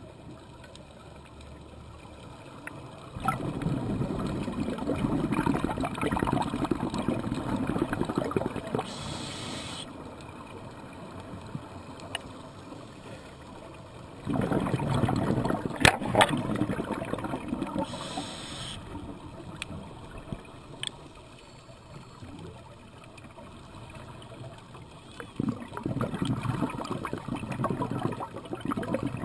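Scuba diver breathing through a regulator underwater: long gurgling rushes of exhaled bubbles, three times, with a short hiss of inhalation in between them.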